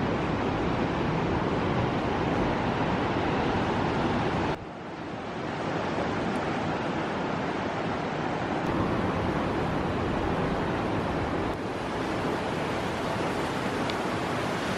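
Ocean surf breaking on a windy beach, with wind buffeting the microphone: a steady rushing noise. It drops suddenly about four and a half seconds in and builds back over a second or two, and dips briefly again later.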